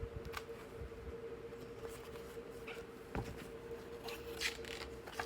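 Paper booklet pages being handled and turned, a few short rustles over a steady faint hum.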